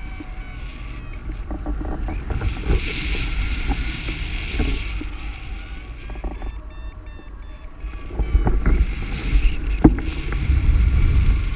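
Wind rushing over a camera microphone during paraglider flight, an uneven low rumble and hiss that gets louder in the last few seconds.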